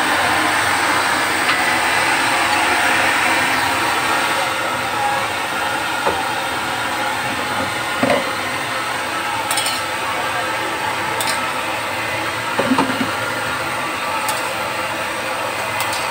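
Gas burner running with a loud, steady roar under a steel wok, with a few scattered metal clinks and scrapes of a spatula and ladle against the wok.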